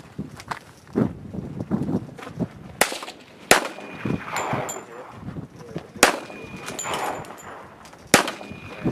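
Four loud handgun shots at uneven intervals, the gaps running from under a second to a couple of seconds. After the later shots a thin ringing tone hangs on briefly: a steel target ringing from a hit.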